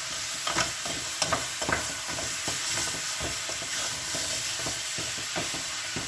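Strips of pork belly sizzling as they fry in hot oil with onions and spices, stirred in the pan, with irregular clicks and scrapes of the utensil against the pan over a steady hiss.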